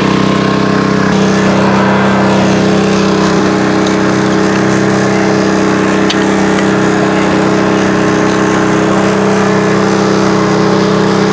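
Engine running steadily at a constant speed, its pitch shifting slightly about a second in.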